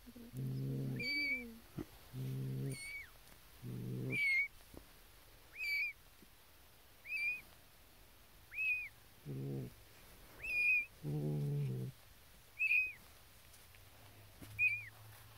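Newborn kittens mewing: thin, high-pitched cries that rise and fall, repeated about every one to two seconds. The mother cat's lower, longer calls sound in between, about five times.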